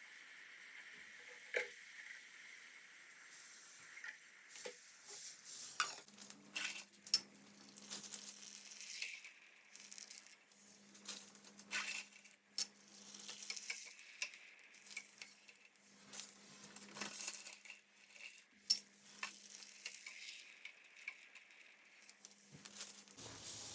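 Food sizzling in hot oil in a pan, stirred with a utensil that clicks and scrapes against the pan again and again.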